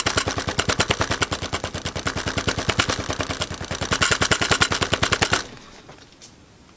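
Hand rubbing fast back and forth over a paper towel pressed onto a painted leaf, printing the leaf onto paper: a rapid, even scrubbing rhythm of about eight strokes a second that stops about five seconds in.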